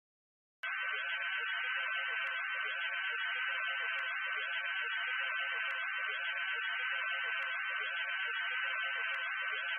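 Radio static between stations: a steady, narrow-band hiss with a thin, steady high whine running through it and a faint click about every second and a half. It starts suddenly about half a second in.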